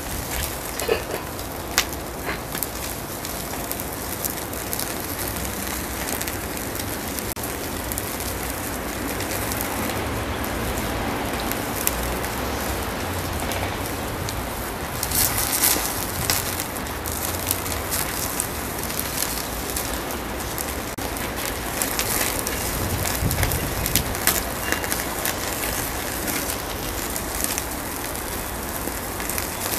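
Charcoal fire crackling under meat on a kettle grill, with dripping fat sizzling and popping in sharp little cracks; the pops come thicker about fifteen seconds in.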